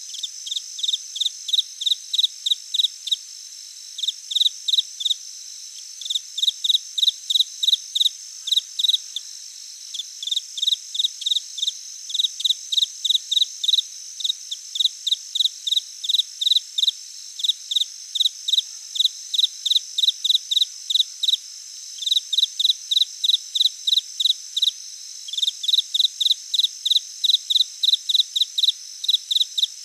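Insects chirping: runs of short, even, high-pitched chirps about five a second, broken by brief pauses, over a steady high buzz.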